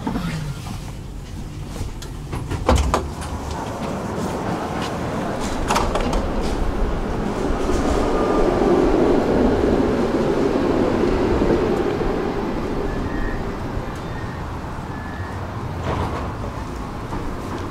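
Electric city tram at a stop. Its motor whine falls away at the start as it brakes to a halt, and there is a loud clunk a few seconds in. Then a tram moves off with a swelling rumble and a slowly falling motor tone, followed near the end by a few short electronic beeps and another knock.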